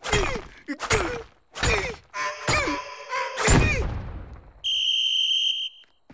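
Cartoon sledgehammers striking rocks, about six blows, each with a grunt of effort. Near the end comes a steady high whistle lasting about a second.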